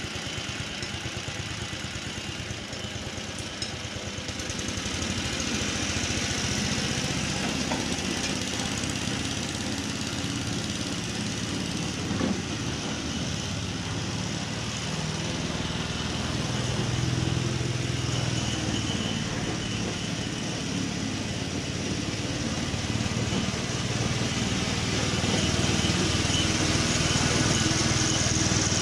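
Small petrol engine of a vintage Ransomes Marquis cylinder lawn mower running steadily. It grows louder about five seconds in, and there is a brief sharp click about twelve seconds in.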